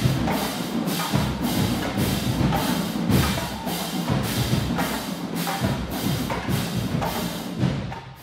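Marching band playing loud, percussion-heavy music with a steady driving beat of drum and cymbal hits, which cuts off abruptly near the end.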